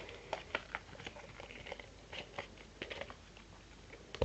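Irregular light clicks and taps of a plastic Nerf tripod attachment being handled.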